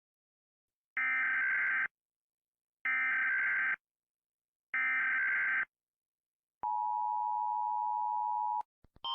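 Emergency Alert System broadcast alert: three short bursts of digital SAME header data about two seconds apart, followed by the steady two-tone attention signal lasting about two seconds.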